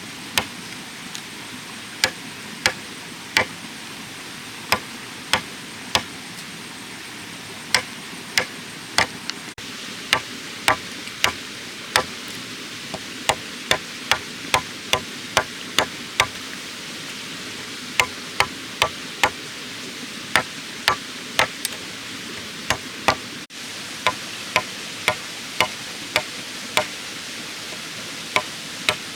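A tool striking bamboo over and over with sharp, ringing knocks, about one to two a second, as bamboo is cut and worked with a blade or hammer.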